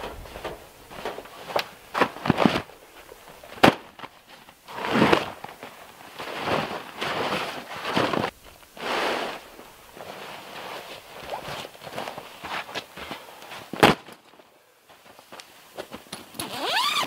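Footsteps and gear handling: a heavy canvas tarp being shaken out and spread on the ground with swelling rustles, between several sharp knocks, the loudest about four seconds in and again near the end.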